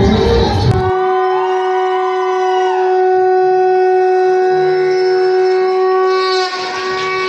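Conch shell (shankh) blown in one long, steady note held for about five and a half seconds, as the opening of a Krishna devotional dance track. It comes in just under a second in, right after electronic dance music cuts off, and gives way to other music near the end.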